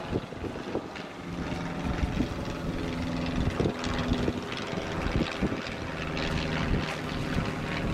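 Steady engine drone with several low held tones and a noisy rumble underneath.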